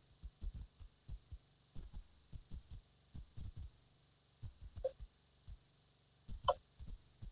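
Wind buffeting the outdoor nest-cam microphone in irregular low thumps. Two brief higher-pitched chirps come near the end, the second louder.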